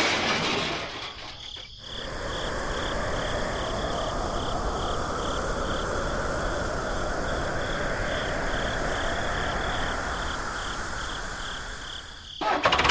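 Rhythmic high-pitched chirping, about three pulses a second, over a steady hiss, like an insect chorus. It starts abruptly after a second and a half and cuts off abruptly near the end.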